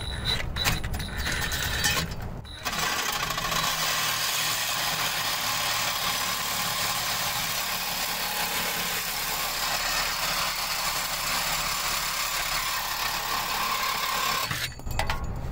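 A power grinder runs steadily for about twelve seconds, cutting back the hacked-up end of an exhaust pipe to clean it up for welding; it starts a few seconds in and stops abruptly near the end. Brief metal handling clatter comes before it starts.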